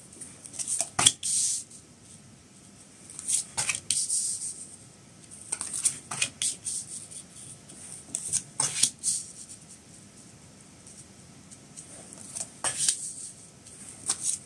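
Oracle cards being drawn from a deck and laid down on a cloth-covered table: about five short bursts of crisp card snaps and sliding rustles, a few seconds apart.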